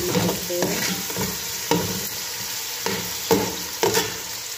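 Diced onion, carrot and green pepper sizzling in a large aluminium pot as a metal ladle stirs them, the ladle scraping and knocking against the pot about six times over a steady frying hiss.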